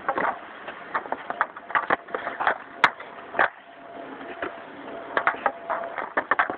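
Bauer hockey stick blade clacking and scraping against pucks and a plastic shooting pad in a run of short, sharp hits; the sharpest crack comes about three seconds in.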